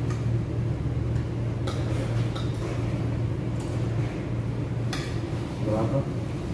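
Cutlery and dishes clinking now and then at a table during a meal, over a steady low hum.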